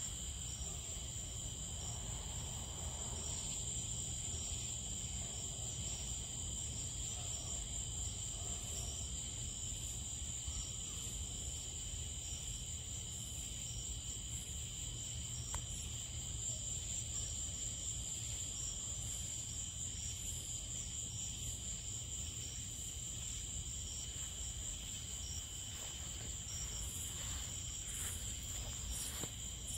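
Night-time chorus of crickets and other insects: a steady high-pitched trilling in two pitch bands, over a low steady background noise.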